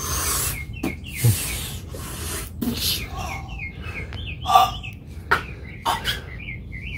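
A person imitating lightsaber sounds with his mouth: breathy hissing swooshes and a wavering, whistle-like high hum, with the loudest burst about four and a half seconds in.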